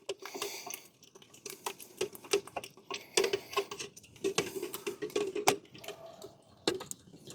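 Paint being stirred in its can, the stirrer clinking and scraping irregularly against the sides.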